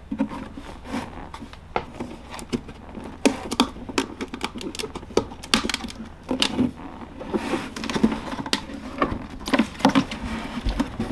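Cell pack and wiring of a 100Ah LiFePO4 battery being worked out of its plastic case by hand: irregular clicks, knocks and scraping.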